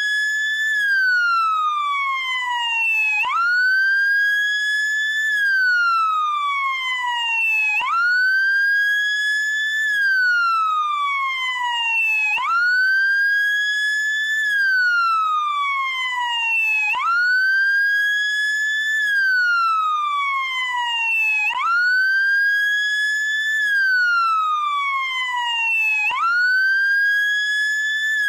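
Electronic wail siren of a SAMU motorcycle ambulance. The tone jumps up quickly, then glides slowly down, over and over, about every four and a half seconds.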